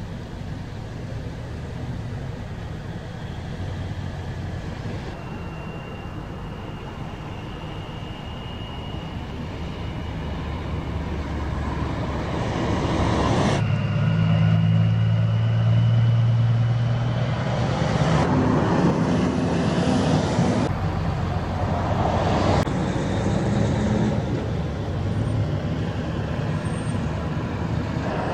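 Highway traffic passing close by: pickup trucks towing trailers and a semi truck, with engine and tyre noise. Loudest about halfway through, as a big-rig diesel goes by with a low engine hum.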